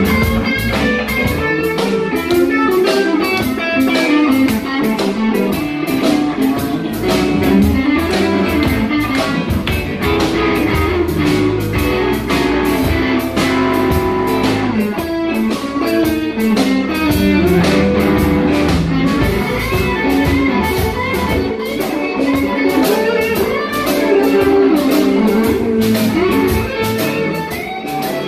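Live blues band playing, with electric guitar over bass and a drum kit keeping a steady beat.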